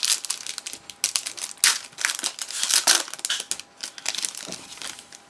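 Foil wrapper of a trading card pack being crinkled and crumpled in the hands, a dense crackle that is loudest over the first three seconds and thins out near the end.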